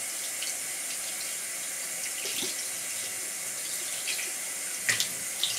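Kitchen tap running steadily into a stainless steel sink as salmon fillets are rinsed under it, with a few short splashes near the end.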